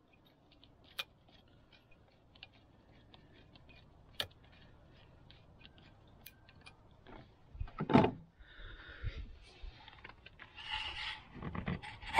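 Faint, rapid small clicks as a hose clamp on the turbo charge pipe is loosened with a screwdriver. A loud thump comes about eight seconds in, followed by rustling and handling noise as the pipe is worked free and a sleeve brushes past the microphone near the end.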